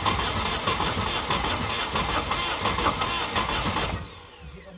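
A Volkswagen Golf Mk1 engine turning with a rough, uneven beat, then cutting out about four seconds in and winding down with a falling whine. The engine has no compression in cylinders 1 and 4.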